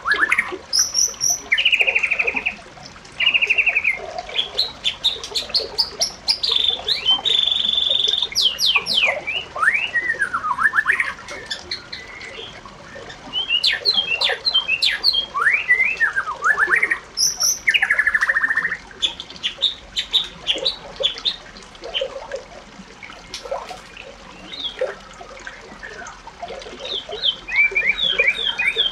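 Bird singing up close: a long, varied song of rapid chirps, fast trills and sweeping whistled notes, broken by a few short pauses.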